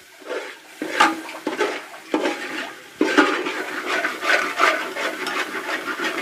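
Stirring a spice paste frying in oil in a metal pot: a utensil scraping and knocking against the pot, a few separate strokes in the first three seconds, then quick steady strokes.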